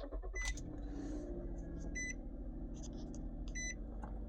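2009 Nissan Murano's 3.5-litre V6 idling steadily just after a push-button start with the new key fob, while the car's warning chime beeps three times, about every second and a half.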